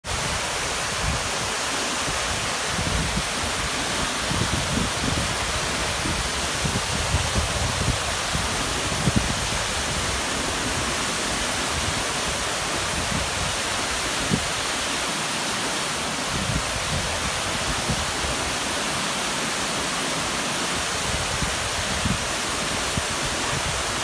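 A partly frozen waterfall, its column of water still running through an ice-covered cliff and pouring steadily. It makes a constant rush of falling water with uneven low rumbling underneath.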